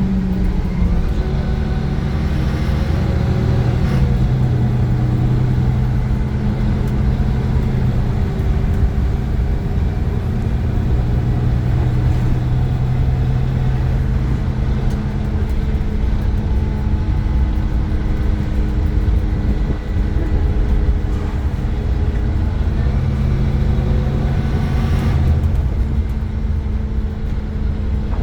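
Iveco Crossway LE 12 bus's Cursor 9 six-cylinder diesel and ZF gearbox running under way: a steady engine and drivetrain drone whose pitch drops and rises a few times as the bus changes speed or gear.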